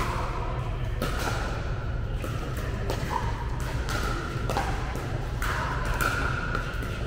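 Pickleball paddles striking a hard plastic ball in a rally: sharp pops, about one or two a second, echoing in a large indoor hall over a steady low hum.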